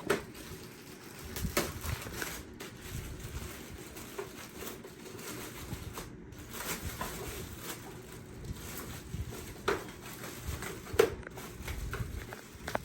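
Cardboard box and plastic packaging being handled and opened: rustling and scraping with a few sharp knocks and taps, the loudest near the end.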